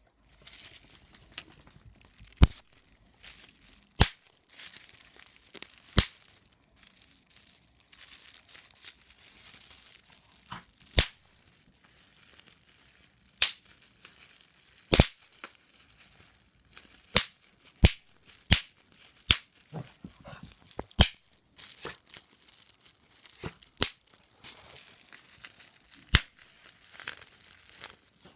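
Bubble wrap being popped: a dozen or so sharp pops at irregular intervals, several seconds apart at first and closer together in the middle, with the plastic crinkling softly between them.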